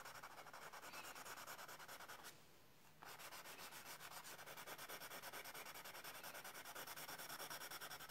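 White conté crayon rubbed in rapid, even strokes on toned paper, a faint dry scratching as the highlights are laid down, with a short pause about two and a half seconds in.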